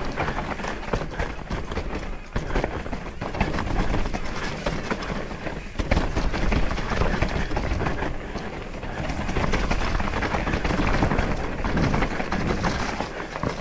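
Trek Slash mountain bike rattling down a rough trail: tyres crunching over dirt and stones, with the chain and frame clattering in a dense, continuous run of clicks and knocks over a steady rumble.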